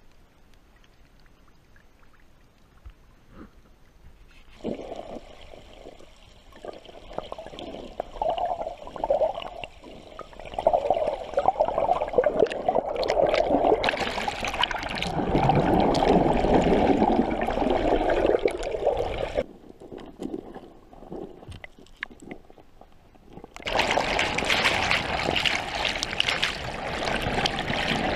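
River water gurgling and rushing around a camera held under the surface, muffled and surging. It is faint for the first few seconds, then builds, cuts off suddenly about two-thirds of the way in, and comes back abruptly with more hiss a few seconds later.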